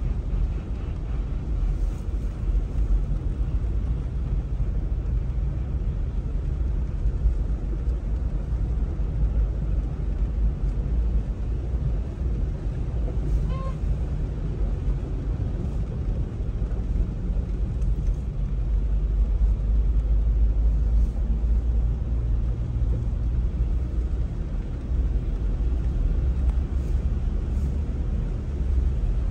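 Car driving on a rain-soaked road, heard from inside the cabin: a steady low rumble of engine and road noise.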